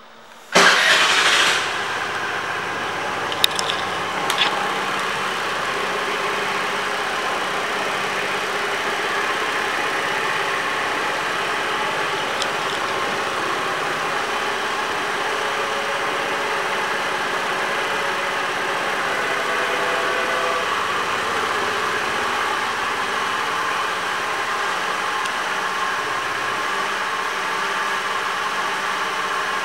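2013 Honda Metropolitan scooter's 49 cc four-stroke single-cylinder engine starting about half a second in, loudest for a moment as it catches, then idling steadily.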